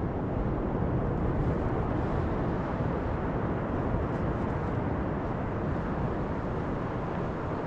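Steady low rushing noise with no distinct events.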